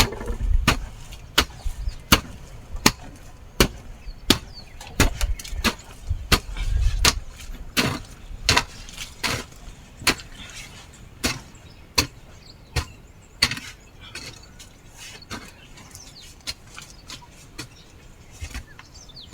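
A digging tool chopping into wet soil in steady strokes, about one every 0.7 seconds, cutting a channel to lead off standing rainwater. The strokes grow fainter and further apart near the end.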